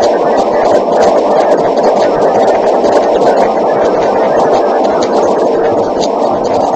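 Loud, steady rushing noise with a hum and scattered faint crackles.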